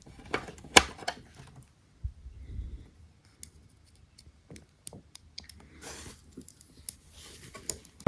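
Irregular small clicks and taps of a replacement headlight lens being handled and fitted onto the headlight housing, with a few soft thuds.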